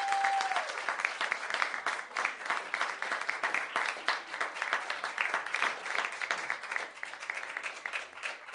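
Canned audience applause: a crowd clapping that gradually dies away and then cuts off. A single steady tone is heard briefly at the very start.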